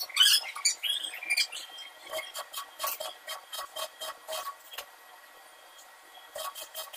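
Stick arc welding on a small steel piece: the arc crackles in a run of short, regular pops, two or three a second, stops about five seconds in and starts again near the end. Louder scraping and clinking of metal comes first.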